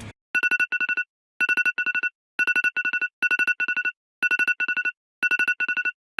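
Electronic ringtone-style beeping: short groups of rapid beeps on two pitches at once, repeating about once a second with silent gaps between groups.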